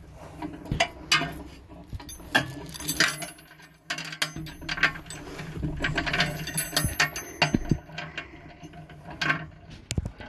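Irregular mechanical clicking and clanking of metal parts as a homemade crane works at lifting a scrap washing machine, over a steady low hum.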